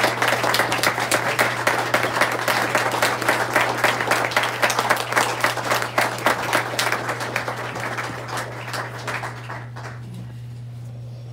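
Audience applauding: dense clapping that thins out and dies away about ten seconds in.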